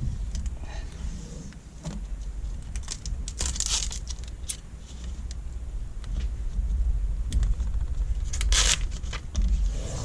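Hands working on a monitor's touch-screen assembly and adhesive tape: scattered clicks and short rustling, tearing and crinkling sounds, the biggest a few seconds in and near the end, over a steady low rumble.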